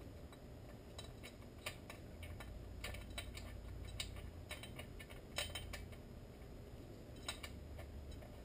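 Irregular light metallic clicks and ticks as parts of a Husqvarna 455 Rancher chainsaw are handled and fitted by hand, over a low steady hum.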